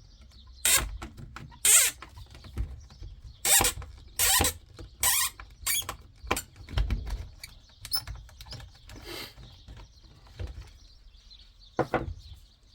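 Hands working on a steering wheel's paddle-shifter fittings make irregular sharp clicks, scrapes and rattles of small plastic parts and tools, about a dozen in all.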